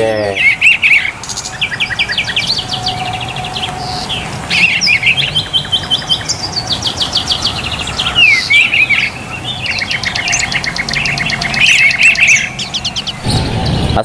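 Caged songbirds singing loudly in rapid trills and chattering runs of fast repeated notes, several songs overlapping.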